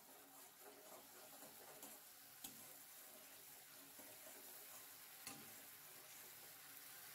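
Faint sizzling of spice paste simmering in a little oil and water in a stainless-steel kadai as it is stirred, with a few light scrapes and taps of the spatula against the pan.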